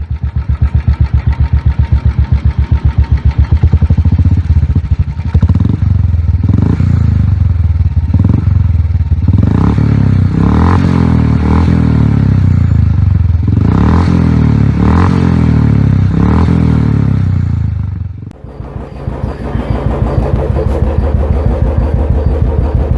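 Royal Enfield motorcycle with an aftermarket silencer, idling with a steady, even thump. Its throttle is blipped several times in the middle. About 18 s in, the sound cuts to another Royal Enfield silencer idling steadily.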